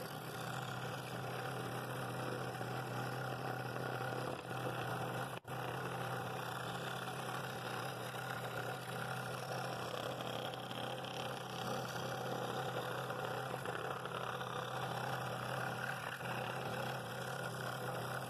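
Scroll saw running steadily with a number 9 blade, cutting slowly through walnut on a 30-degree bevel: an even motor hum with the buzz of the blade in the wood.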